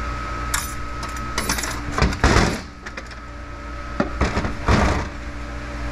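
Steel parts from a Turbo 350 automatic transmission, the clutch drum and its plates, clinking and rattling as they are handled and set down on the bench: a few sharp clinks, then a short metallic clatter about two seconds in and another cluster of clinks and rattles near the end.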